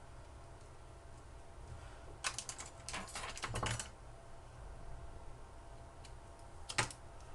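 Light plastic clicks and taps from handling a mobile phone as its SD card and SIM card are removed: a quick run of clicks a couple of seconds in, and one or two more near the end.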